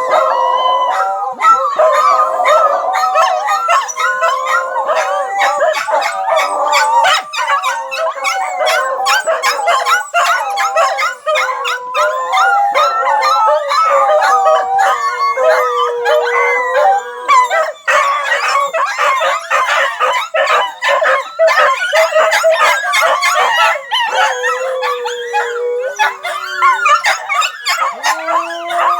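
Several dogs howling together, their long wavering howls overlapping, with short yips among them.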